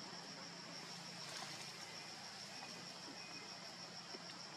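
Faint forest ambience: insects trilling steadily at a high pitch, with a faint low hum underneath.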